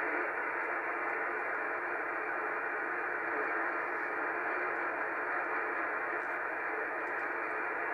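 Steady receiver static hissing from a Yaesu FT-450D transceiver's speaker on the 11-metre band, cutting in abruptly at the start as the radio is tuned.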